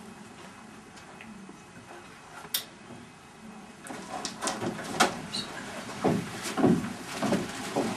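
Quiet room tone with a single click a little after two seconds. From about halfway there are irregular knocks and thumps on the stage, two or three a second, growing louder.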